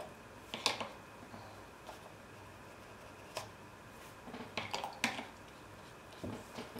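Light clicks and taps of a paintbrush and plastic watercolour palette being handled: a scatter of short sharp knocks, the loudest about half a second and five seconds in.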